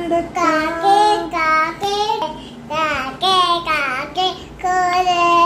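A young child singing a song in a high voice, with some notes held long and the pitch sliding between them.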